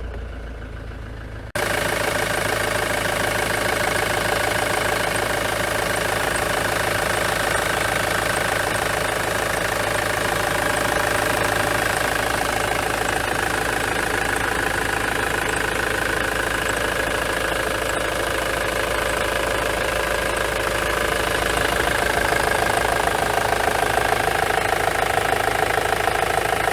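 Ford Transit's 2.4 TDDI Duratorq four-cylinder diesel idling, with the misfire at idle that the owner describes. The sound gets suddenly louder about a second and a half in, then runs steadily.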